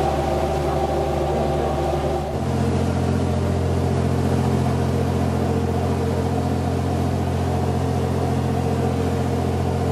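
A motorboat's engine running steadily under way, with a low hum whose note shifts about two and a half seconds in.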